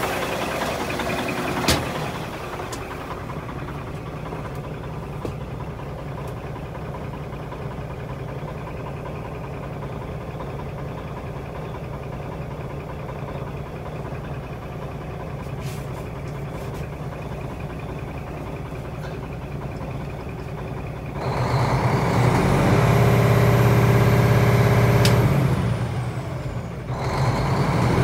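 Cummins ISX inline-six diesel idling, heard from inside the truck cab after a sharp knock about two seconds in. About 21 seconds in it is revved up for several seconds, louder, with a high turbo whine that rises, holds and falls away as it drops back, then revs again at the very end. The seller reports a misfire on this engine.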